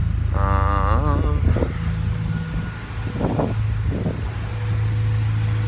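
Acura Integra's B20 VTEC four-cylinder engine idling with a steady low drone at a raised idle of around 900 rpm, while a misfire code for cylinders 1, 2, 3 and 4 is still set; the owner suspects the distributor cap and rotor.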